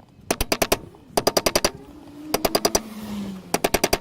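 Rapid ratcheting clicks from a hand tool working on the spare-wheel retainer cap, in short bursts of about half a dozen clicks each, four times over.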